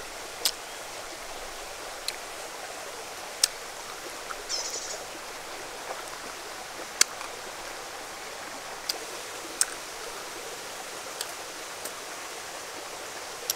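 Steady rush of a shallow stream, with about eight sharp clicks and a brief crackle at irregular intervals as langsat fruit is peeled and eaten close by.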